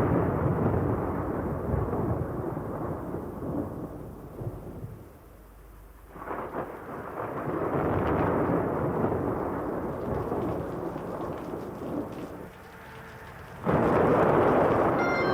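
Thunderstorm sound effect at the start of a rock recording: rolling thunder over rain, in long swells that die down twice and then break in again loudly about two seconds before the end. Organ notes begin just at the end.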